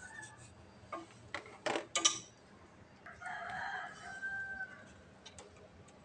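Several sharp clicks and knocks from hands working at a gas water heater's wiring connector. About three seconds in, a rooster crows once, for about a second and a half.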